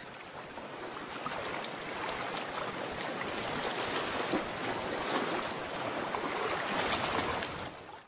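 Water washing and splashing in a steady rush that cuts off just before the end.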